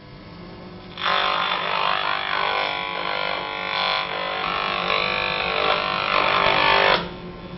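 Buzzing from the speaker of a handheld RF radiation meter picking up microwave leakage from a running microwave oven. A faint steady hum turns, about a second in, into a loud, dense buzz that cuts off abruptly near the end, as the oven's emission is interrupted.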